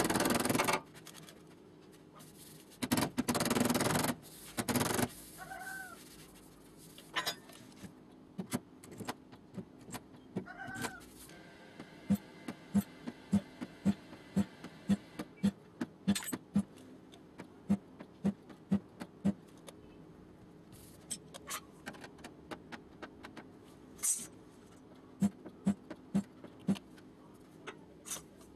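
A long run of light, dull taps, about two a second, as of a hammer working a steel car door panel during panel-beating, with a few short loud noisy bursts in the first few seconds and two brief squeaks.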